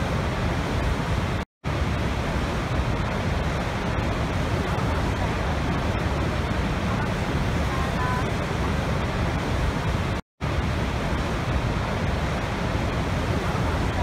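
Niagara's Horseshoe Falls: the steady, heavy rush of a huge volume of falling and churning water, deepest in the low end. The sound drops out to silence very briefly twice, about a second and a half in and again about ten seconds in.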